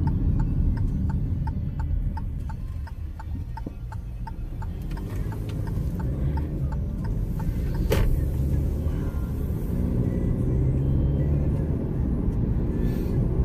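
Car cabin while driving: a steady low rumble of engine and road. For the first several seconds a regular turn-signal ticking runs over it, about two ticks a second. A single sharp click comes about eight seconds in.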